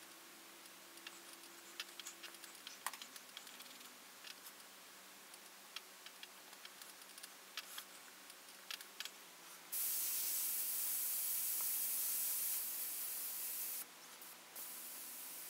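Faint scattered ticks and scratches of a pencil-style tool working on paper. About ten seconds in, an airbrush sprays ink in a steady hiss for about four seconds, stops, then sprays again more softly near the end.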